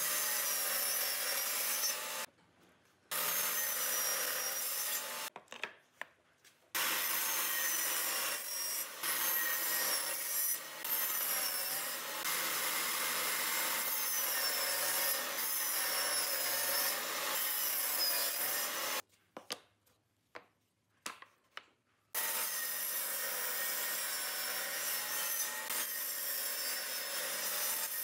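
Table saw with a plywood top crosscutting wooden strips, the blade noise carrying a wavering whine. The sound cuts out abruptly three times and comes back at full level each time.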